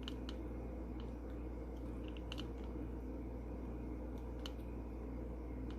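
Faint, scattered light clicks over a steady low hum.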